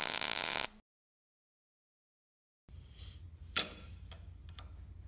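A loud hissing logo sound effect cuts off under a second in. After a silence comes one sharp metallic clack as the Strong Hand Grasshopper welding positioner's magnetic base is set onto a steel tube, followed by a few light metal clicks as it is handled.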